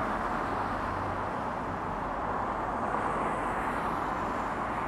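Steady outdoor background noise: an even rushing sound with a faint low hum beneath it, and no knocks or snaps.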